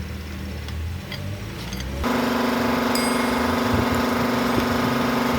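A low hum, then about two seconds in a power tool switches on abruptly and runs loud and steady at an even, fairly high pitch.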